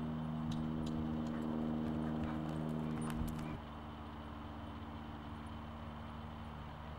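A steady hum of several even pitches that cuts off sharply a little past halfway, leaving a quieter low hum, with a few faint clicks of a horse's hooves on arena sand in the first half.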